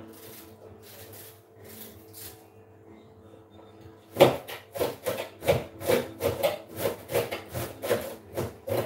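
Kitchen knife shredding raw cabbage on a plastic chopping board: faint cuts at first, then loud, regular chopping strokes about three a second from about four seconds in.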